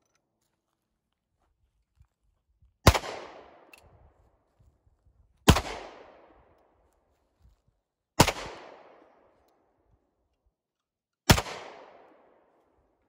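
Four single handgun shots fired slowly, about two and a half to three seconds apart, each sharp crack trailing off in an echo.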